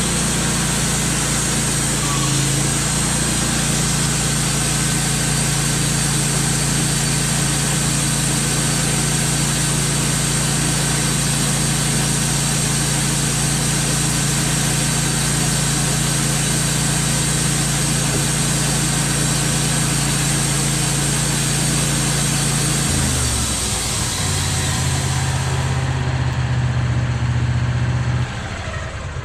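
Wood-Mizer LT15 band sawmill running at speed, its engine holding a steady note under the hiss of the spinning band blade while it saws a cedar log. About three-quarters of the way through, the engine note drops and the blade hiss fades. Near the end the machine winds down.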